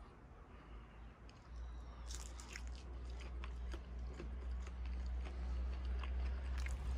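Close-up chewing of a bite of fried egg, with many small wet mouth clicks from about two seconds in, over a low rumble.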